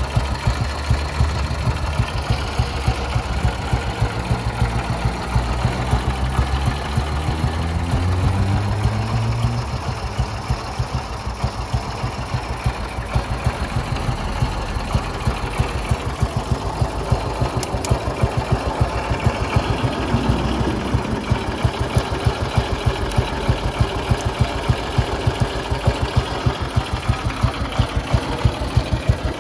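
1957 Ariel NH350's single-cylinder four-stroke engine idling with even, closely spaced exhaust beats. It is revved briefly about six seconds in, rising in pitch for a few seconds before dropping back to idle.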